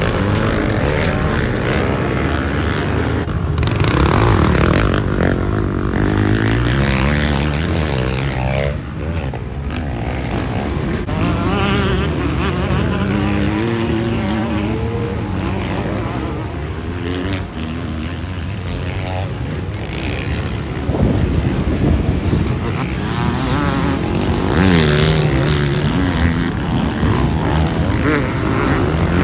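Motocross dirt bike engines racing, revving up and down again and again as the riders work the throttle through corners and gear changes.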